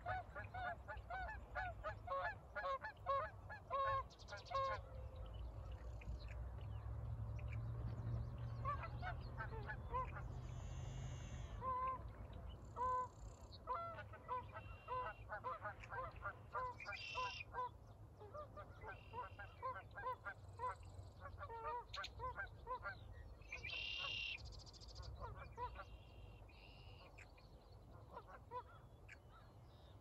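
A flock of birds calling, many short repeated calls overlapping one another, with higher chirps now and then and a low rumble underneath.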